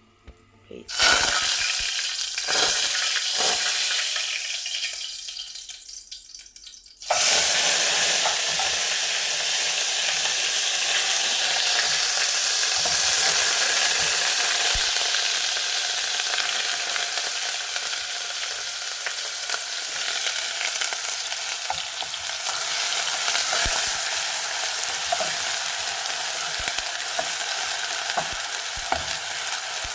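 Onion, ginger and garlic frying in very hot oil in a pan. A loud sizzle breaks out about a second in and dies down, then a louder sizzle starts suddenly about seven seconds in and goes on steadily, with the light clicks of stirring.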